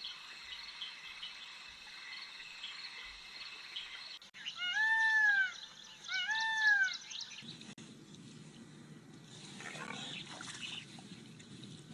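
Two loud animal calls, each rising and then falling in pitch over about a second, over faint chirping background. Partway through, the background changes to a low, even rumble.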